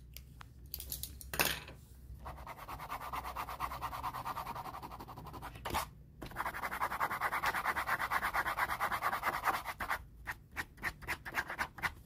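A stylus scratching back and forth on a smartphone touchscreen in quick, even strokes, many to the second, while shading. The strokes come in two long runs broken by a short pause about six seconds in, and the second run is louder.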